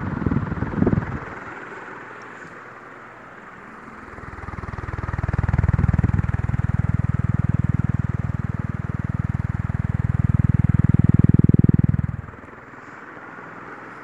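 Ventisol Wind Premium ceiling fan running, a steady airy whoosh. Its airflow buffets the microphone with a low, fluctuating rumble, briefly at the start and then loudly from about four seconds in until it cuts off near the end.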